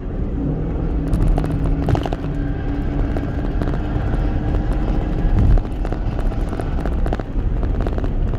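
Motor vehicle running: a steady low engine drone over road rumble, loudest about five and a half seconds in.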